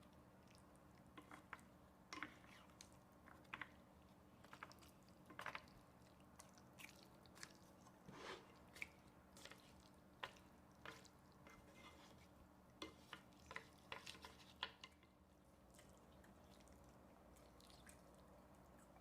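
Mouth sounds of a person chewing spicy ramen noodles, with many soft wet smacks and clicks. The chewing stops a few seconds before the end.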